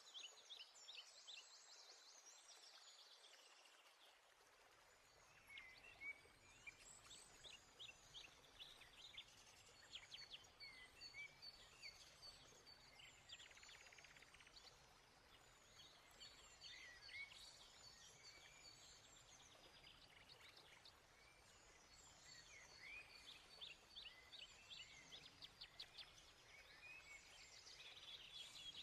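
Faint birdsong: several small birds chirping and trilling in quick short phrases over a low hiss.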